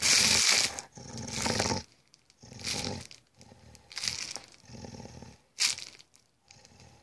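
Rottweiler-Beagle mix dog growling in a series of short bursts, the first the loudest, while a plastic bag crinkles.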